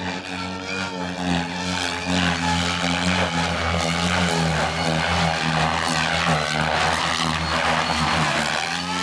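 Electric SAB Goblin Kraken 3D RC helicopter in flight: a steady buzzing hum from the spinning rotor, with a rushing blade noise that swells and fades as it throws itself through aerobatic manoeuvres.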